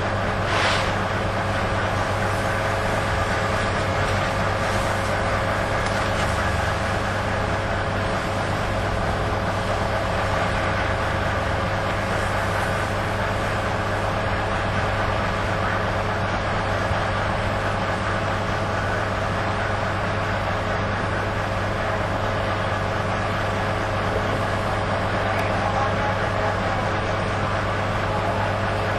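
Fire engine running steadily, a constant droning hum with several steady tones. There is a brief hiss about a second in.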